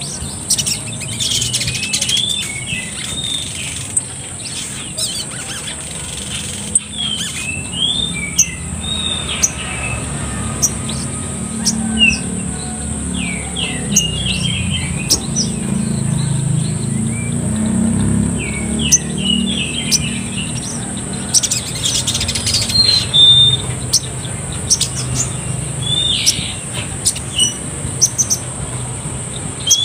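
Sogon (brown-throated sunbird) calling: quick, sharp chirps and short gliding twitters that come in clusters of a few notes, with pauses between them. A steady high-pitched hum and a few sharp clicks run underneath.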